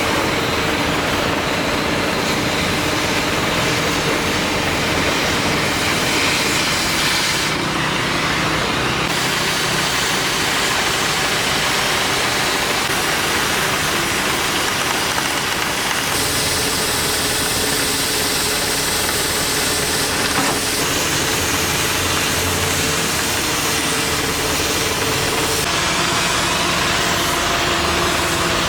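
A heavy engine running steadily at an even speed, with a constant hiss over it.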